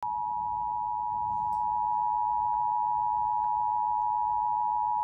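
Emergency Alert System attention signal from a television's speaker: a loud, steady two-note tone held without a break, announcing an emergency alert (here a flash flood warning).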